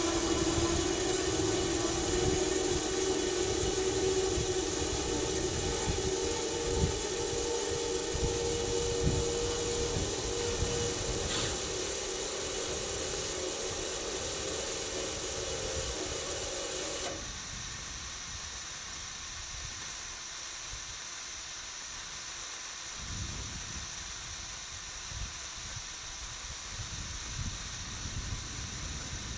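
Steady gas hiss from a trailer-mounted gas-fed test rig. A hum of several steady tones sounds along with it and cuts off suddenly a little past the middle, leaving the hiss alone, with low gusty rumbles underneath.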